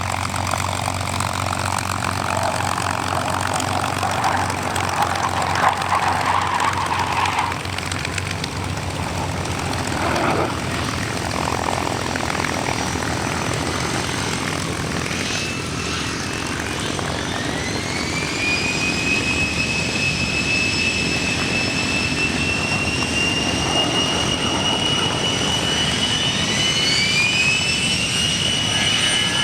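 Aircraft engines of the XP-82 Twin Mustang running. About halfway through, a high whine rises and settles into a steady tone, and near the end a second whine rises and holds a little higher.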